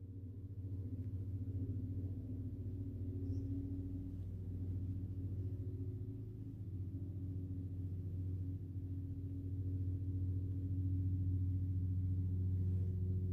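Low, steady droning hum made of several held low pitches, running evenly and cutting off abruptly at the end.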